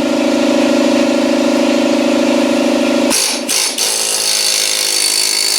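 Pneumatic air hammer with a flat chisel bit running, driven against a mower tire to break the bead loose. Its steady hum gives way about three seconds in to a harsher, hissing clatter.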